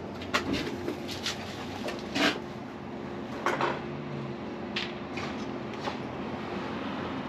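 Scattered clunks and clicks, about seven over several seconds, as a 1997 Honda Civic is lowered off a jack onto its newly fitted coilovers, over a steady low hum.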